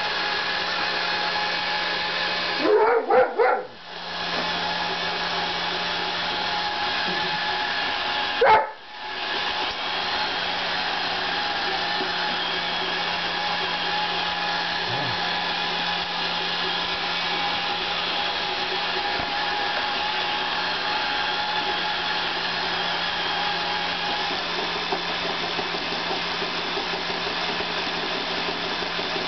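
A Roomba robot vacuum runs with a steady whirring hum while a German shepherd–border collie mix dog barks at it: a quick burst of three or four barks about three seconds in, then a single bark a few seconds later.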